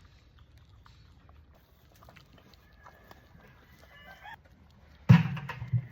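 Chickens clucking faintly, with a short higher call about four seconds in. About five seconds in, a sudden loud noisy thump or rustle, the loudest sound here, lasts under a second.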